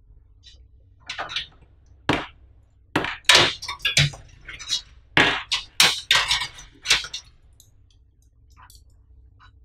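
PC power-supply cables being handled: hard plastic connectors, including a 24-pin ATX plug and SATA leads, clicking and clattering together in a quick run of sharp knocks from about a second in until about seven seconds in.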